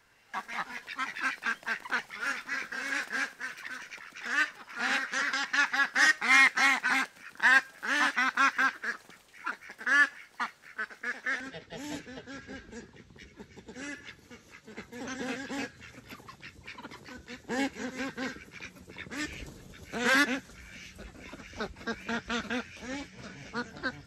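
Domestic ducks quacking in rapid, overlapping calls, dense for the first several seconds and then thinning to scattered bursts of quacks.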